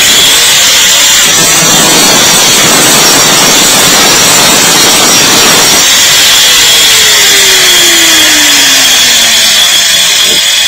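Electric angle grinder switched on and cutting into a wooden plank with a cutting disc: a loud, steady high whine with rasping grit from the disc biting the wood. A lower tone slides steadily down in pitch over the last few seconds.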